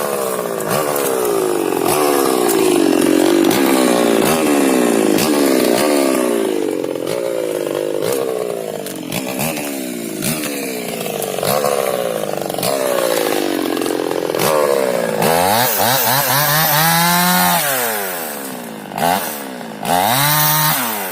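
Two-stroke chainsaw cutting wood, its engine pitch rising and falling as the chain bites in and frees up. In the last few seconds it drops back between two short throttle blips.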